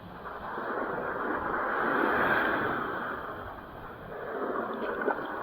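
Surf washing up the beach: a rushing wash that swells to a peak about two seconds in, ebbs, then builds again near the end.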